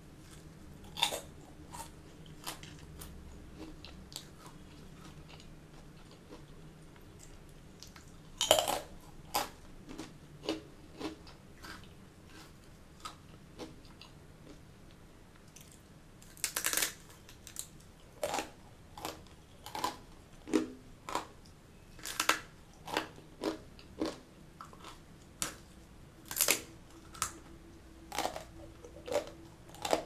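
Close-miked crunching and chewing of crisp fried Indian snacks. At first there are a few scattered crunches with quiet gaps between them. About halfway through comes a loud bite into a butter murukku, followed by steady crunching chews, about one or two a second.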